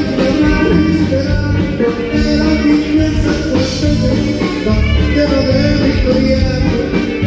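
Live band playing a corrido, with a man singing over it.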